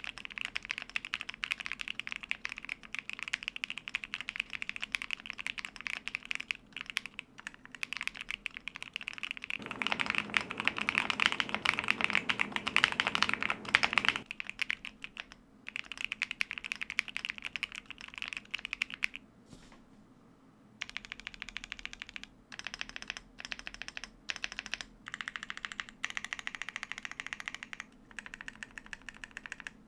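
Typing test on a Luminkey75 custom mechanical keyboard in its clacky configuration: case foam and PCB foam removed, Owlab Neon switches in a gasket-mounted polycarbonate plate. Rapid, continuous keystrokes with a clacky sound, fuller and louder for a few seconds about a third of the way in, with a short pause about two-thirds of the way through.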